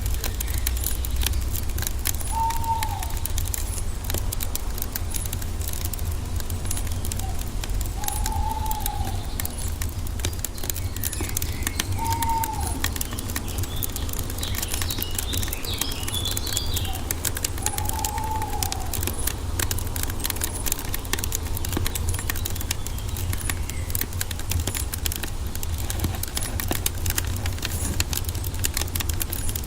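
Wood fire crackling steadily over a low rumble, while a bird gives a short arched call four times, several seconds apart, and a smaller bird chirps briefly in the middle.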